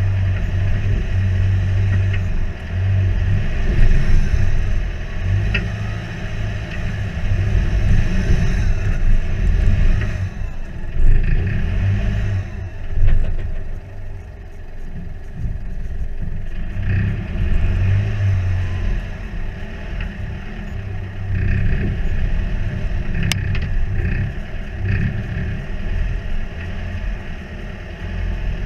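Four-wheel drive's engine working in low gear as it crawls up a rocky track, its pitch and level rising and falling with the throttle. Knocks and clatter from the vehicle bouncing over the rocks, with a sharp click near the end.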